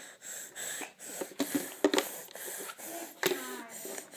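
A one-year-old toddler making motorcycle noises with his mouth: short breathy vocal bursts and a brief pitched buzz about three seconds in. There are sharp clicks a little under two seconds in and at about three seconds.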